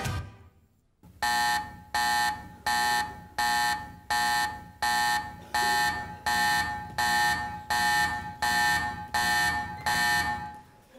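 An electronic alarm buzzer sounding in a steady series of about thirteen harsh pulses, roughly one and a half a second. It starts about a second after the music cuts off.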